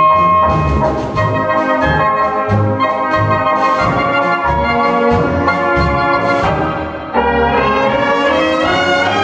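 Brass band playing a polka: trumpets and trombones carry the tune over a steady oom-pah tuba bass, with drum-kit cymbal strokes on the beat.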